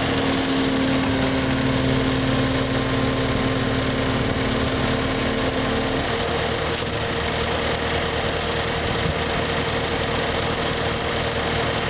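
Diesel engine of a compact track loader running steadily while its hydraulics raise and lower a pickup broom attachment. A steady hum that runs with it drops out about six seconds in.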